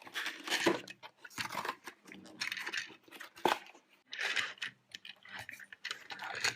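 Toy packaging being handled and opened: irregular crinkling, crunching and tearing in short bursts.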